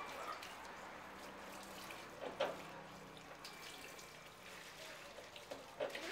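Water splashing and sloshing in a stainless steel sink as a wet cloth is scrubbed and wrung by hand, with a couple of louder splashes, one midway and one near the end.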